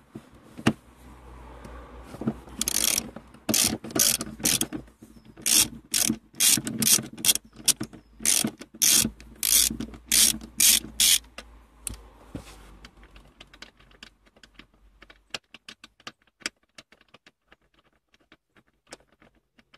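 Socket ratchet wrench clicking as a seat-rail bolt is undone, in loud strokes of clicks; after about halfway the clicking turns lighter and quicker as the bolt loosens.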